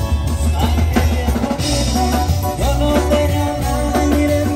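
Live band playing: drum kit beat under a steady bass line and strummed guitars.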